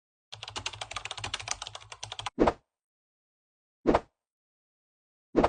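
Rapid keyboard-typing clicks for about two seconds, then three short, loud thumps evenly spaced about a second and a half apart.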